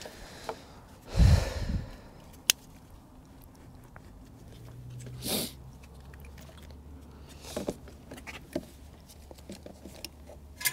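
Hands handling small engine parts: a dull bump about a second in, then scattered sharp clicks and a short rustle, over a faint steady low hum.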